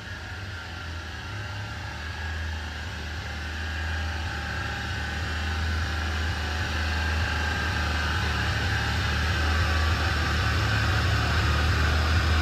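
A car engine running steadily on a chassis dyno with a deep, even hum, growing slowly louder throughout.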